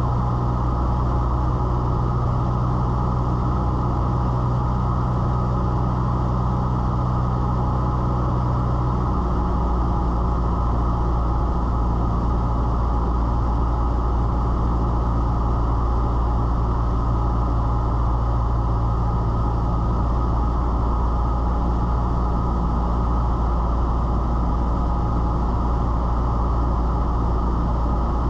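Cessna 172's piston engine and propeller droning steadily, heard inside the cabin. About nine seconds in the engine note drops slightly, a power reduction on approach to the runway.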